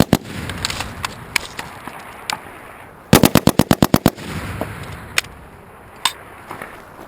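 M240B medium machine gun firing 7.62x51 in short bursts of rapid, evenly spaced shots. A burst ends just as it begins, and a second burst of about ten rounds in about a second comes about three seconds in. A few faint single sharp cracks follow.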